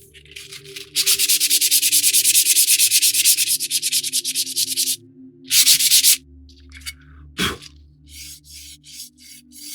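Fine-grit sandpaper rubbed back and forth by hand over a model kit's bow deck part: a long run of quick strokes, a short burst, then lighter, shorter strokes. A single knock comes about seven seconds in.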